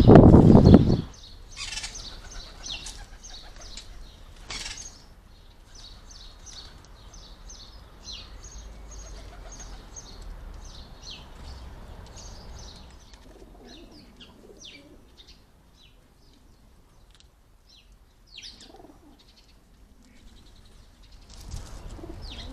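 Wild garden birds at a bird bath: a loud rush of wing flapping in the first second, then small birds chirping with many short, high notes, thinning out in the second half.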